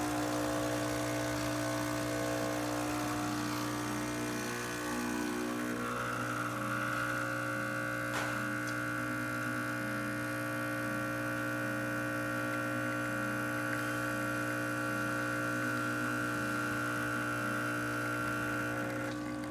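Expobar espresso machine's pump running steadily while pulling a test shot, a constant hum with a higher steady tone joining about six seconds in.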